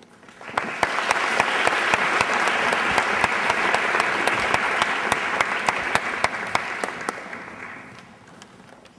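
Audience applause that swells up about half a second in, holds steady, and dies away near the end, with a few close, sharp claps standing out.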